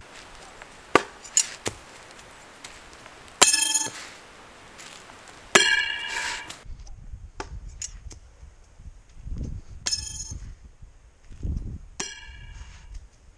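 Throwing knives striking and clattering, a string of sharp metallic hits, four of them with a short ringing tone after the impact.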